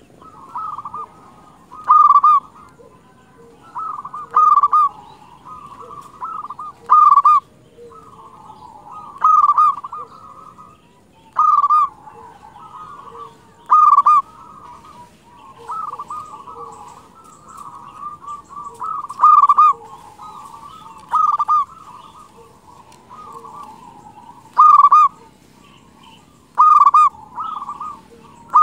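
Zebra dove (perkutut) cooing: loud, repeated trilling coo phrases, one about every two to three seconds, with quieter trills between them.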